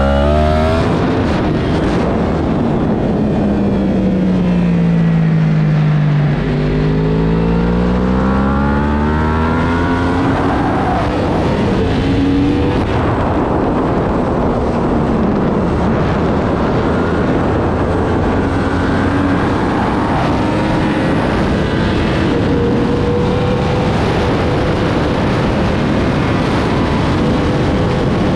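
Superbike engine at racing speed, with heavy wind rush on the onboard microphone. The revs fall for the first few seconds, then climb hard for about four seconds, dip again at a gear change or braking, and then stay high and fairly steady.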